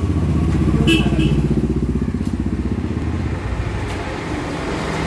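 An engine running steadily with a fast, even pulse, a little louder in the first couple of seconds. There is a brief high chirp about a second in.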